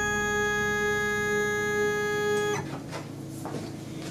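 Shapeoko CNC's Z-axis stepper motor whining at one steady pitch as the router is jogged down, starting suddenly and cutting off about two and a half seconds in.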